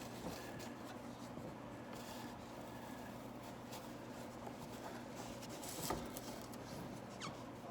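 Soft scraping and rustling of a fabric-covered ABS headliner board being worked into position against a car's interior. There is one sharper knock about six seconds in and a brief falling squeak near the end.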